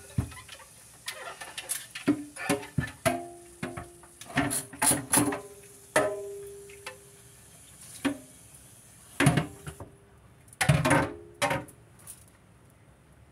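Dishes and glassware knocking and clinking while being washed at a kitchen sink, in irregular bursts. Several knocks ring briefly, like struck glass.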